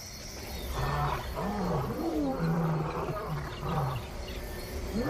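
Lion roaring: from about a second in, a series of deep, repeated calls, each rising and falling in pitch.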